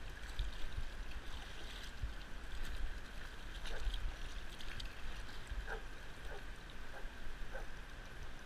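Water lapping and splashing around a float tube, over a steady low rumble, with a burst of splashing about four seconds in as the fish is fought. A few faint short chirps come in the second half.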